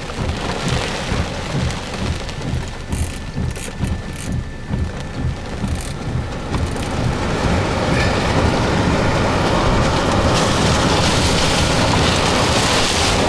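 Heavy rain and gusting wind battering a moving vehicle, with uneven low buffeting throughout. About halfway through it builds into a steadier, louder roar of wind-driven rain: the rear-flank downdraft of a tornadic supercell surging over the vehicle.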